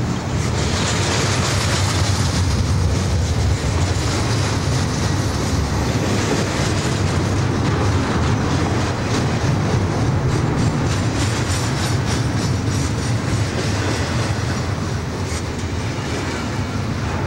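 Double-stack container well cars of a freight train rolling past, a steady loud rumble of steel wheels on the rails with clicking over the track.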